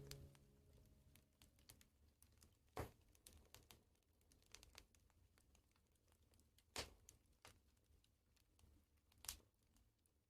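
Faint crackling of a burning wood fire: sparse small ticks with three louder pops, as the last piano notes die away at the start.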